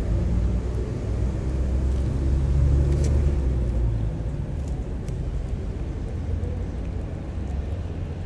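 Low rumble that swells about two to three seconds in and eases off toward the end, with a few faint clicks.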